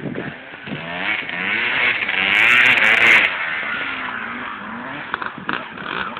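Motocross dirt bike engine revving as the bike rides past, rising in pitch and getting louder as it nears, loudest about two and a half to three seconds in, then dropping lower and fading.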